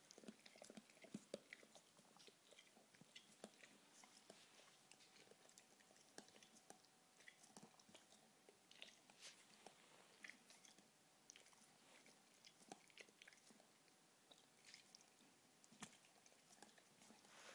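Faint, irregular wet clicks and smacks of a Weimaraner's tongue and mouth as it licks a sticky toffee off its teeth.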